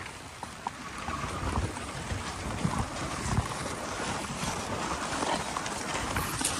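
Dog sled running along a packed snow trail: a steady hiss of the runners sliding over snow, with wind on the microphone and scattered small knocks. It grows a little louder as the ride goes on.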